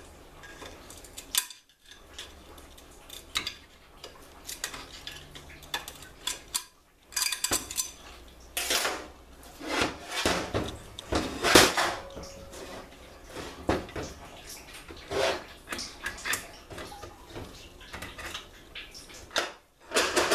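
Irregular metallic clinks and clanks of a Ford C6 automatic transmission's internal parts being handled and pulled out of the case during teardown, heaviest about halfway through and broken by three short silent gaps.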